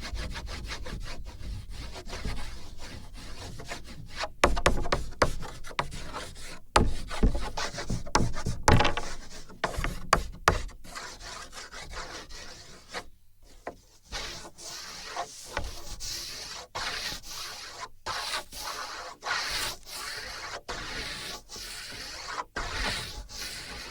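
Drawing strokes scratching and rubbing across a wooden drawing board, picked up by sensors on the board. The strokes rub steadily and grow heavier in the first half. They stop briefly about halfway, then come back as a run of quick, separate scratches.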